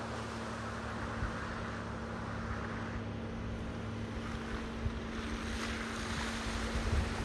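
Jeep driving slowly toward the microphone and into a trail puddle: a low steady engine hum with tyres splashing through water, getting louder near the end, over wind on the microphone.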